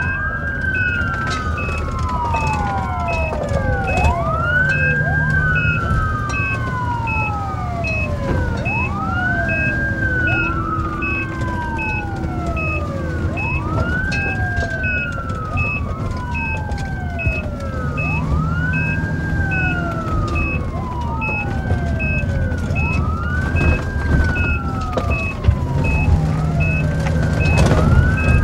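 Ambulance wail siren, muted inside the ambulance's cabin, rising quickly and falling slowly every four to five seconds. A patient heart monitor beeps regularly, a little over once a second, over the steady rumble of the engine.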